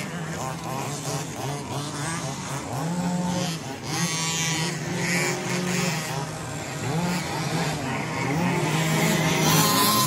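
Several remote-control 2WD buggies racing together, their electric motors whining and rising and falling in pitch over and over as they accelerate and slow.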